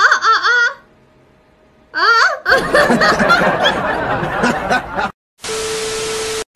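A woman's wavering, drawn-out vocal cry, then after a short pause she laughs loudly for about three seconds. The laughter cuts off, and near the end there is a hiss of TV static with a single steady test-pattern tone.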